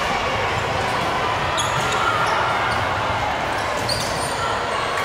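Volleyball rally in a gym: a sharp hand-on-ball hit on the serve at the start, then a few more hits on the ball, over a steady background of crowd noise in the hall.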